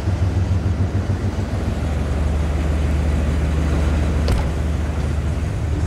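Blizzard wind buffeting the microphone: a steady, loud, low rumble with a hiss of wind above it, and a single click about four seconds in.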